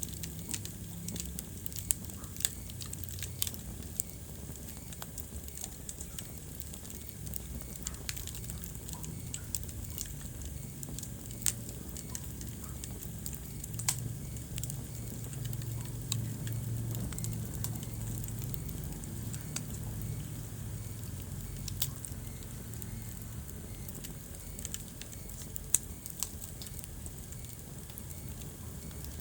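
Wood fire crackling in a fireplace: scattered sharp pops and clicks, a handful noticeably louder, over a steady low rumble of the flames.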